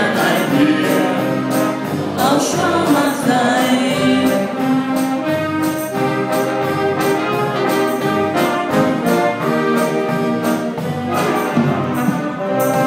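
Brass band playing the song's accompaniment with a steady beat, with some singing in it.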